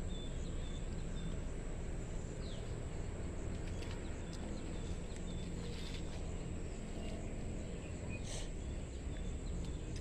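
Rural outdoor ambience: a steady low rumble with rows of short, high chirps repeating throughout, and a few brief rustles of leafy plants being handled as vegetables are picked.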